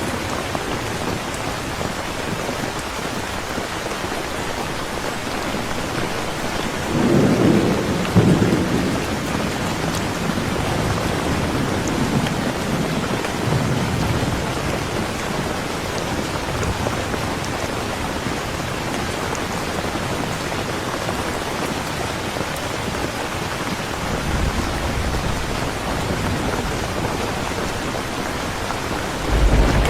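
Steady rain falling, with a rumble of thunder about seven seconds in and more low thunder rumbling near the end.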